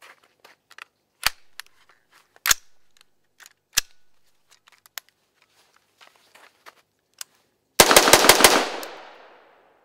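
A few sharp clicks from handling the AR-15, then a rapid string of about six shots fired in under a second, their echo dying away over about a second.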